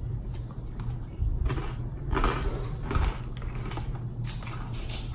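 Close-miked chewing of a mouthful of lettuce salad: irregular crunchy bites, over a low steady hum.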